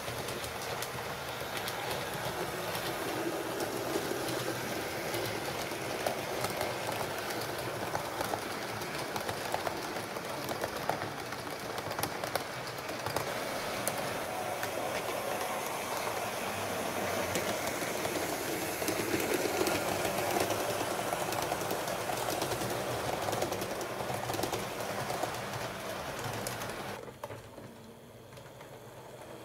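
HO scale model train running on its track: a steady rolling rattle of the wheels with many small clicks over the rail joints, which falls away sharply near the end.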